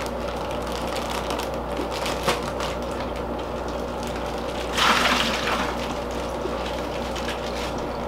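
Water poured from a plastic fish bag through a mesh net into a plastic bucket, with the bag crinkling and crackling in the hands. A louder rush of noise comes about five seconds in.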